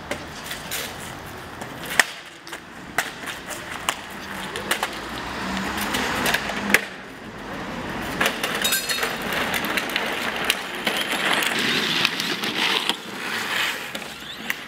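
A few sharp knocks and clatter, then, from about eight seconds in, the hard plastic wheels of a child's ride-on toy motorbike rolling and grinding over asphalt.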